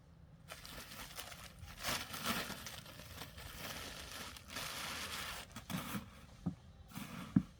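Rustling and scraping noise in stretches of a second or two, followed by a few small knocks near the end.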